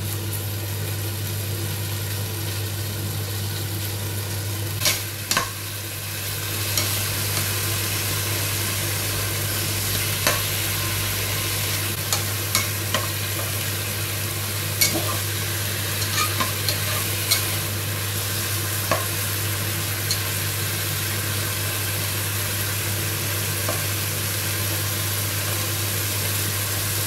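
Chicken pieces sizzling as they brown in a pot, stirred with a utensil that now and then clicks against the pot. A steady low hum runs underneath, and the sizzle grows a little louder about seven seconds in.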